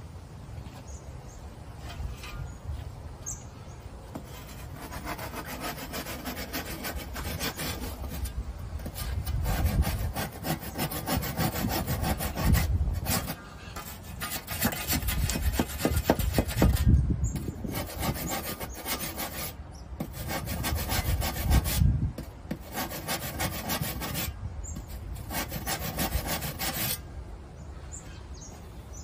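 Hand saw cutting through a long plastered quoin section with steady back-and-forth rasping strokes, in several runs broken by brief pauses.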